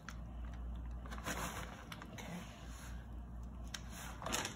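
Faint rustling and scraping of shredded cheese being scattered by hand over macaroni in an aluminium foil pan, with a few louder brushes about a second in and near the end, over a low steady hum.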